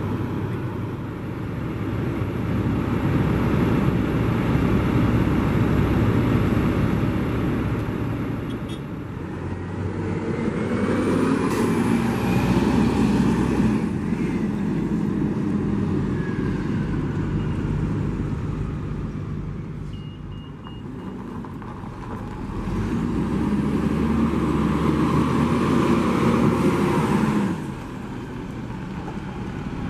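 Diesel transit bus engines running and pulling away, a heavy low drone that swells twice as buses accelerate, about ten seconds in and again past twenty seconds, then drops off sharply near the end.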